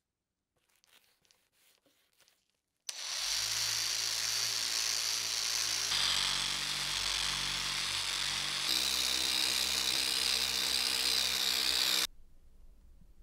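A small rotary polisher with a foam pad buffing polishing compound on a steel blade: a few faint handling clicks, then the tool starts suddenly about three seconds in, runs with a steady whir and cuts off sharply near the end.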